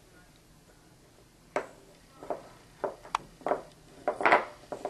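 Quiet room, then irregular light clicks and taps of chunky puzzle pieces knocking against a children's puzzle board as a baby handles them, with a louder clatter a little past four seconds in.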